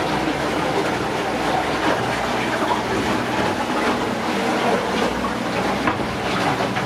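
Small boat under way: a steady motor hum with water rushing and splashing along the hull.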